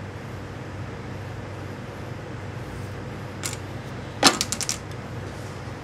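A wooden yardstick dropped onto the cutting table: one sharp knock followed by a quick rattle of about six bounces, with a lighter tap just before it. A steady low hum runs underneath.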